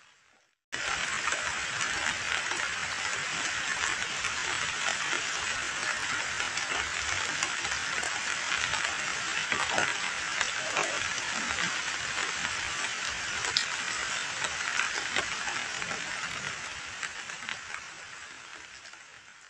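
Heavy rain falling onto a muddy puddle of standing water: a dense, steady hiss made of many small drop clicks. It starts suddenly about a second in and fades out near the end.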